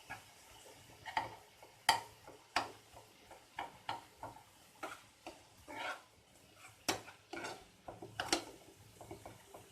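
Spoon scraping and knocking against a pan while stir-frying momo filling, in irregular strokes about once or twice a second.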